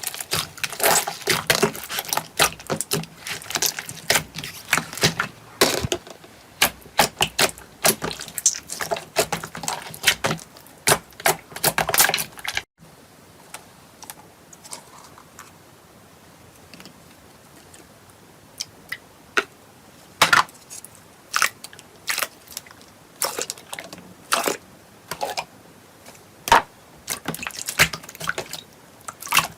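Slime being squeezed and worked, making dense wet clicks and pops; about thirteen seconds in it cuts to a quieter stretch with sparser, separate pops.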